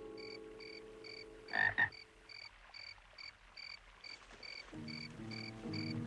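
Night-time chorus of chirping frogs or insects: short high chirps repeating evenly about two and a half times a second, with one louder call about two seconds in. A held orchestral chord fades under it early on, and soft music enters near the end.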